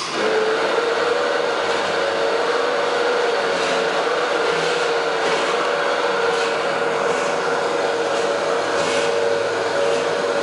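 Electric two-stone matcha mill running steadily, its motor giving a constant hum over the stones' grinding hiss, with a faint scrape recurring about every second and a half.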